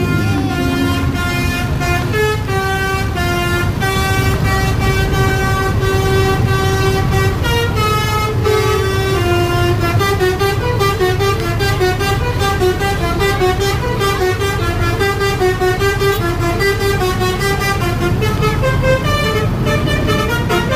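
Indonesian 'telolet basuri' bus horn playing a quick tune of stepped notes, several pitches sounding together, over the steady low rumble of a bus engine.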